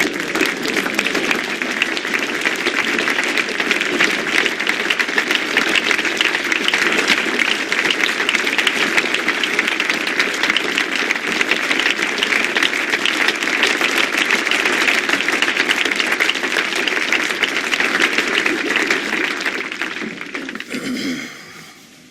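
A large crowd applauding, dense and steady, fading away about twenty seconds in.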